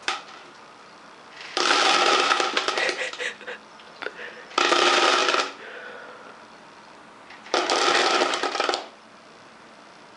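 Dry dog food rattling in a bowl in three bursts of about a second or more each, a few seconds apart.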